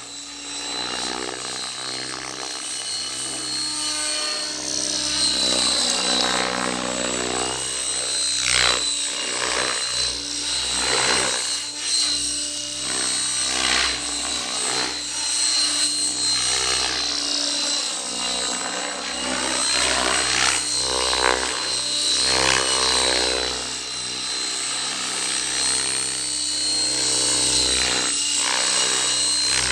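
Fusion 50 radio-controlled model helicopter flying passes, its engine and rotors sounding continuously with a steady high whine. The pitch sweeps up and down several times as it flies toward and away from the listener.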